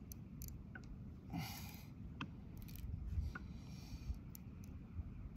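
Faint handling noise from a baitcasting rod and reel: a few small clicks and a short rustle about a second and a half in, over a low wind rumble.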